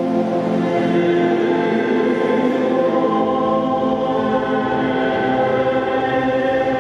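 A choir singing slow, sustained chords, with a lower part joining about three seconds in.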